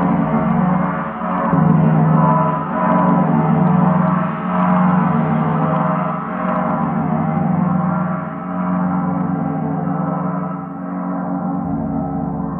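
A gong spinning on a Rotogong stand and ringing on. Its steady hum swells and fades in a regular pulse about every one and a half to two seconds as it turns, while the highest tones slowly die away.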